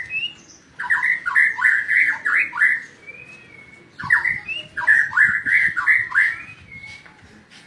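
White-rumped shama singing: two loud phrases, each a quick run of about six rich, sweeping notes, starting about a second in and again about four seconds in, with thin high whistles between them.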